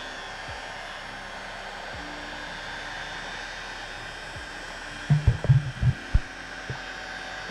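Heat gun blowing a steady stream of hot air, with a cluster of short low thumps about five to six seconds in.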